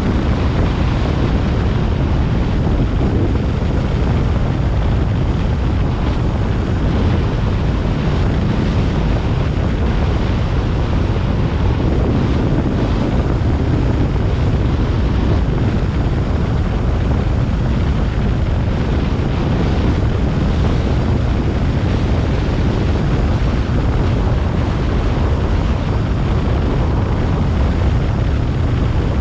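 Steady wind noise on the microphone with the low road and engine rumble of a car driving along a road.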